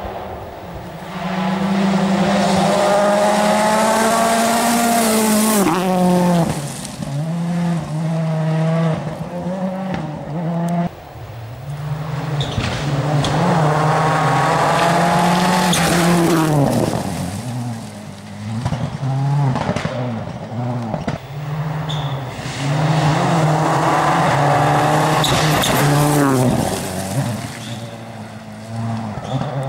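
Rally car engines running at high revs through a special stage, three loud spells of the engine note climbing and then dropping sharply, with quieter bursts of revving in between.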